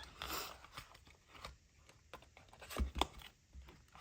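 Small handling noises on a desk: faint rustling with scattered light clicks, and two sharper knocks close together near three seconds in.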